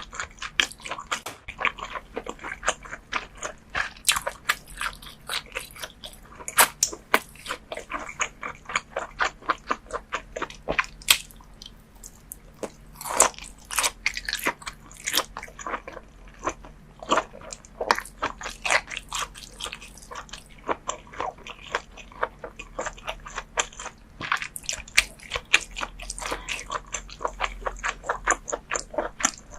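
Close-miked chewing and biting of raw scallop sashimi: many short, sharp mouth clicks, several a second, without a break.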